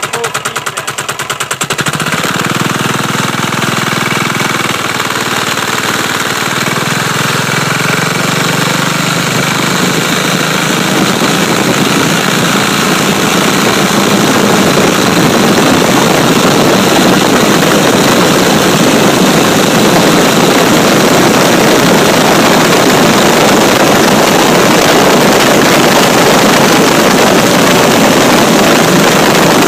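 Turbo diesel motorcycle engine running under load as the bike picks up speed. Rapid even firing pulses for the first couple of seconds give way to a fuller, denser sound that builds in loudness over roughly the next dozen seconds, then holds steady and loud, mixed with wind rush on the microphone.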